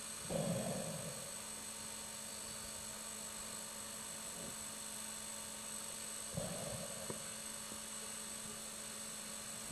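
Underwater sound: a steady hum, with a scuba diver's regulator exhaling a gurgle of bubbles twice, about six seconds apart.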